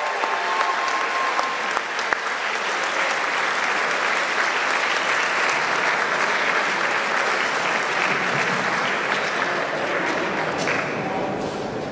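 Audience applauding steadily. The last held notes of the music die away in the first second or two.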